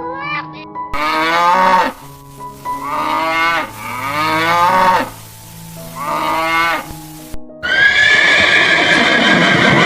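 Farm animal calls over background music: four drawn-out calls of about a second each, rising and falling in pitch, then a louder, rougher call starting near the end.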